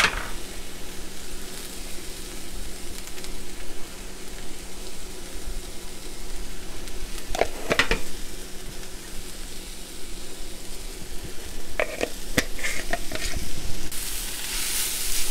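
Cabbage, onion and dumplings sizzling steadily in a cast iron skillet, with a few short knocks about halfway through and again after about twelve seconds. Near the end a spatula starts stirring and scraping the food around the pan, and the sizzle grows louder and brighter.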